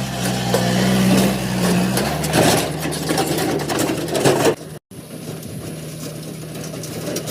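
JCB backhoe loader's diesel engine running, its note rising under throttle for about two seconds, then dropping as clattering noise rises over it. The sound cuts out briefly just before five seconds in, then the engine goes on at a steady note.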